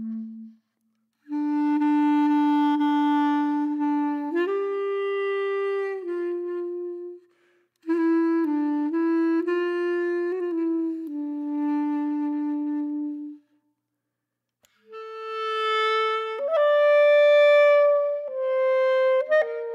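Background music: a solo wind instrument playing a slow melody of long held notes, in phrases broken by short pauses, the last phrase pitched higher.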